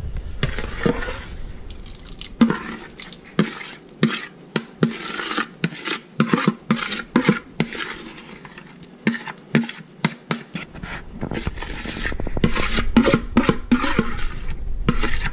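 Metal spoon scraping leftover marinade out of a bowl into a frying pan: a long run of short scrapes and taps of the spoon against the bowl.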